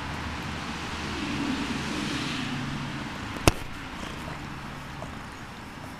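Domestic tabby cat purring steadily close to the microphone, a low even rumble. A single sharp click about halfway through.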